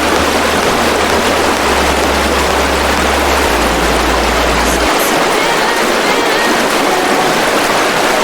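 Water pouring down a large waterfall, a loud, steady rush. Low sustained bass tones lie under it until about five seconds in, then stop.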